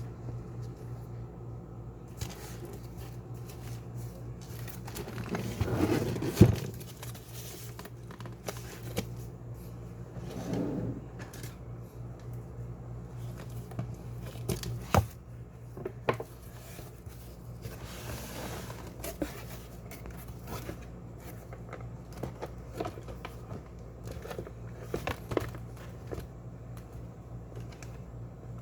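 Packaging handled during an unboxing: crinkling and rustling of wrapping and cardboard with scattered clicks and knocks, the sharpest knock about six seconds in, over a steady low hum.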